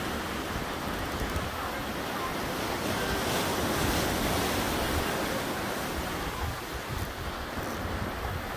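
Choppy sea washing and breaking around a pier's pilings, with gusting wind rumbling on the microphone.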